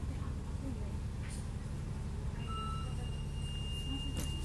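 Steady low rumble of a double-decker bus running, heard from inside the bus. About two and a half seconds in a short beep sounds, and then a steady high-pitched tone starts and holds.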